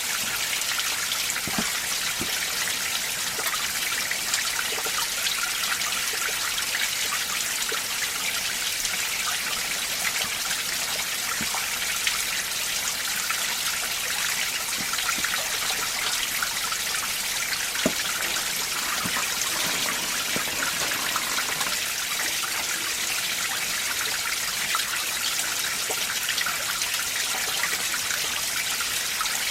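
Mountain valley stream in winter, water running steadily with a bright rushing sound and scattered small splashes.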